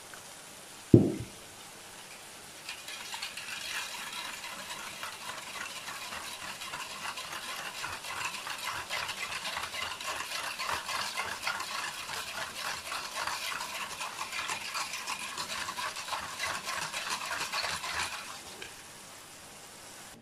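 A single thump about a second in, then a wire balloon whisk beating eggs in a plastic bowl: a fast, steady rattle of the wires against the bowl for about fifteen seconds, stopping shortly before the end.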